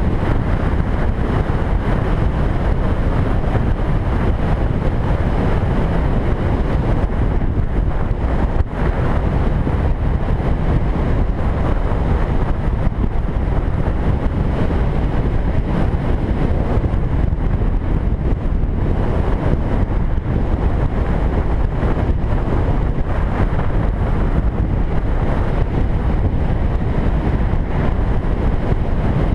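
Wind noise on the microphone of a camera riding on a motorcycle at road speed, with the motorcycle's running and road noise underneath. It holds steady throughout, with one short dip about eight and a half seconds in.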